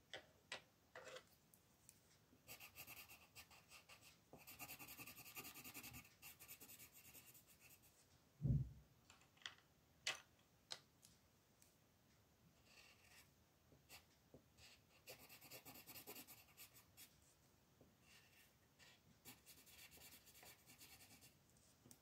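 Colouring on paper: a colouring tip scratching across the page in runs of strokes lasting a few seconds, with scattered small clicks between them. A single dull low thump about eight and a half seconds in is the loudest sound.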